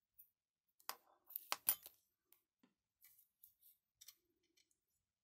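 Faint sharp clicks and light taps of small parts being handled: a miniature geared DC motor and 3D-printed plastic housing pieces knocking together, the loudest clicks between about one and two seconds in, with softer ones after.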